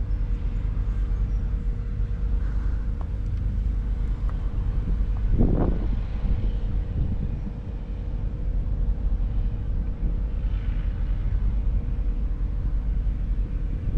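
A steady low rumble with a constant hum, like an engine running nearby, mixed with wind on the microphone. About five and a half seconds in there is one brief pitched call.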